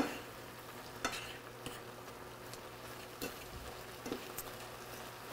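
Spoon stirring shredded cabbage, carrots and ground chicken in a frying pan, with a faint steady sizzle. A few sharp clicks of the spoon against the pan, the first the loudest.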